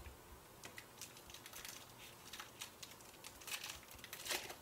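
A foil Contenders football card pack being torn open and the cards slid out and handled, heard as faint crinkling and scattered light clicks. The clicks grow busier and louder near the end.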